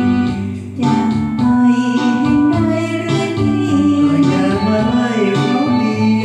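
Karaoke cover of a Thai duet song: a voice singing the lyrics over the karaoke backing track.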